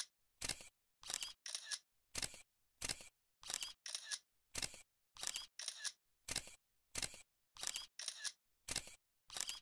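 Camera shutter clicking over and over, roughly two clicks a second, some in quick pairs, with dead silence between them.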